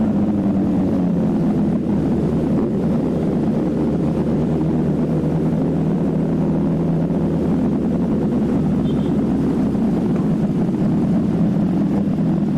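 Motorcycle engine running at a steady, easy cruise, its pitch drifting gently up and down with the throttle.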